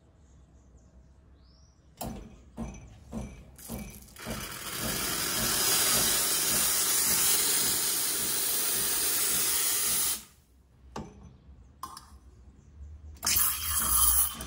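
Saeco SE50 espresso machine's steam wand purged into the air: a few short spurts of steam, then a steady hiss for about six seconds that is cut off abruptly, clearing condensed water before frothing. Another brief burst of steam near the end.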